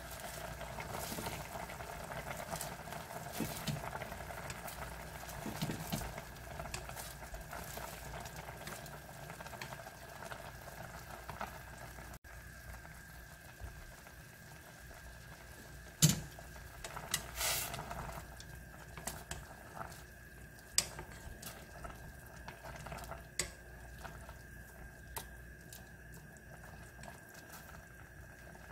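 Pot of ramyeon broth with small octopus boiling steadily on the stove. A few sharp clinks of a utensil against the stainless steel pot come in the second half, the loudest about halfway through.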